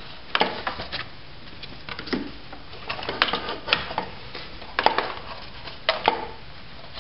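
Plastic engine air box being worked down into place and snapped into its clips: a run of irregular plastic knocks and clicks.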